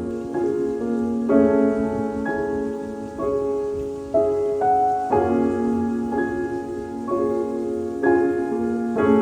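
Background piano music: slow, gentle notes and chords struck about once a second and left to ring.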